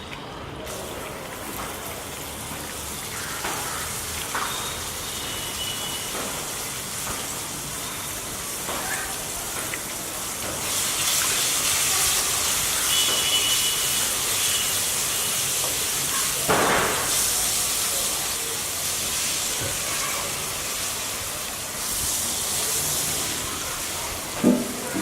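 Pepper chicken frying and sizzling in a pan, a steady hiss that grows louder partway through, with a few knocks of a spoon against the pan.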